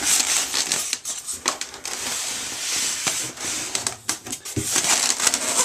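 Rustling and crinkling of packaging, with small clicks and knocks as a boxed model tool chest bank is handled and unwrapped.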